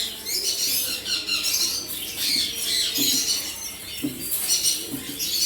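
Many small caged birds chirping and squawking together in a continuous high-pitched chatter.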